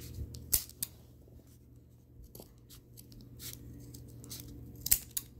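Steel scissors snipping through folded paper: a few separate sharp snips with small clicks between them, the loudest about half a second in and another near the end.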